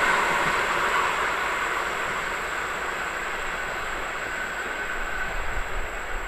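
Passenger train rolling away along the track, its wheel-on-rail noise fading over the first few seconds and then holding low.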